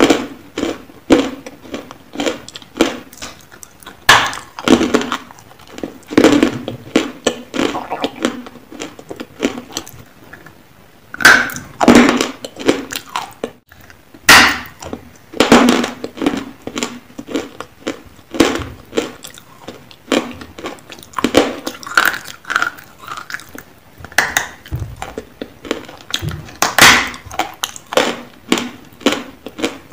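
Close-miked biting and crunching of hard, dry grey lumps of Nakumatt eating chalk: many sharp crunches in quick clusters, with a short pause about ten seconds in.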